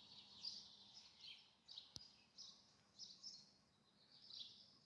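Faint birdsong: short, high chirps repeated every half second or so, with a single sharp click about two seconds in.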